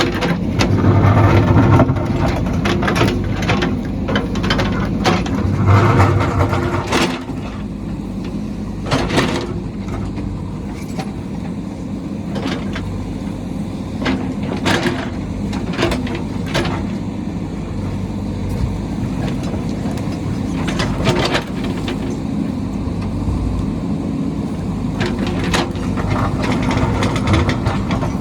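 JCB backhoe loader's diesel engine running under load, surging louder about a second in and again around six seconds, with repeated sharp clanks and knocks throughout.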